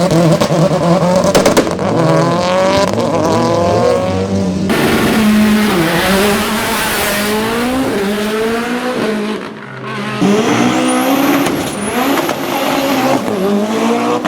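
Hill-climb race car engines running at full throttle, climbing in pitch and dropping at each upshift, one car after another. A high thin whistle rises and wavers in the second half.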